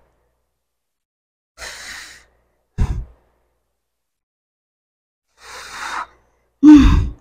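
A woman breathing hard with exertion: two breath cycles, each a noisy breath followed by a short forceful exhale, the last exhale voiced.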